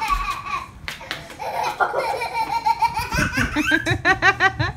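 High-pitched excited laughter: a held squeal, then a quick run of ha-ha-ha near the end, with a low steady hum beneath it in the second half.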